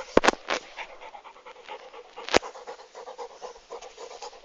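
A dog panting quickly and evenly after running for a ball. Sharp knocks, the loudest sounds, come just after the start and once more a little over two seconds in.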